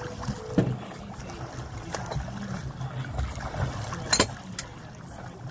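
Escort boat moving through open water with a steady low rumble and water noise, while a swimmer's front-crawl strokes splash now and then, most plainly about half a second in and again about four seconds in.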